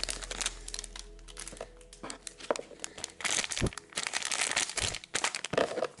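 Crinkling of a shiny plastic blind-bag toy packet being picked up and handled, in irregular rustles that get denser and louder from about halfway through.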